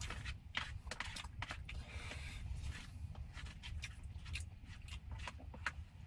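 Spoon scraping and tapping against a small food tray: a string of short, irregular scrapes and clicks over a steady low rumble.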